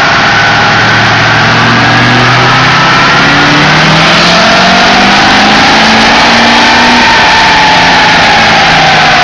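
LLY Duramax 6.6-litre V8 turbodiesel in a Chevy Silverado pulling under load on a chassis dyno, its note climbing steadily as the revs rise. A whine climbs alongside from about four seconds in and levels off near the end.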